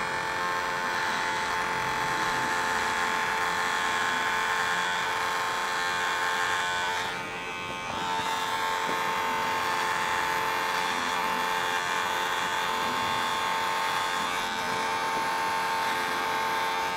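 Electric hair trimmer buzzing steadily as it shaves the lines of a leaf design into short hair, briefly quieter about seven seconds in.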